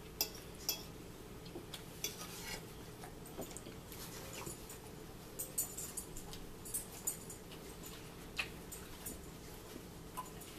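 Faint, scattered clinks and taps of a fork against a plate during eating, over a steady low background hum.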